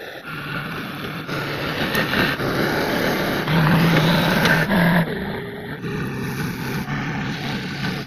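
JCB backhoe loader's diesel engine running while it works. The sound is loudest for a stretch in the middle and shifts abruptly several times.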